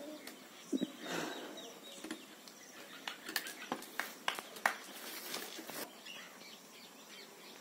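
Quiet outdoor background with faint bird chirps. A run of light clicks and taps comes between about three and six seconds in.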